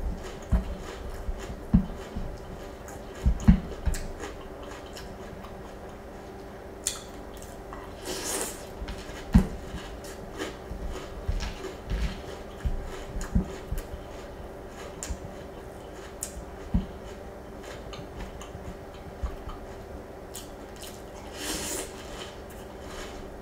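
Close-up eating of sweet, fruity cereal in milk: chewing, with scattered soft knocks of a wooden spoon in a glass bowl. Twice, once midway and once near the end, the spoon scoops wetly through the cereal and milk.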